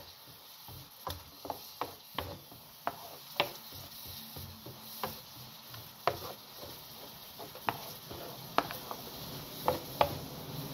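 Wooden spoon stirring diced onions frying in garlic butter in a large pan, knocking against the pan at irregular intervals over a faint sizzle.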